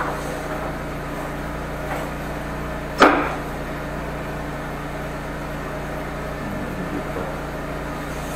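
Gasoline engine of a high-pressure drain jetter running steadily, with a sharp knock about three seconds in and two fainter ones before it.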